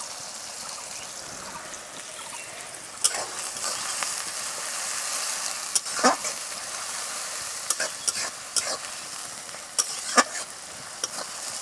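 Chopped onions sizzling in hot oil in a metal kadai as they fry, with a steady hiss that swells for a few seconds in the middle. A steel spatula stirs them, scraping and clicking against the pan several times, most sharply about six and ten seconds in.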